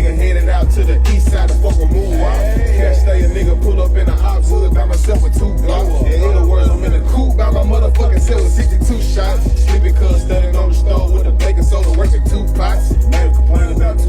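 Loud hip-hop music with a rapped vocal over a heavy bass line that holds long, low notes.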